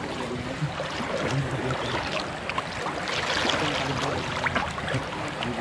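Muddy pond water sloshing and swirling around people wading chest-deep through it, a steady wash of water noise.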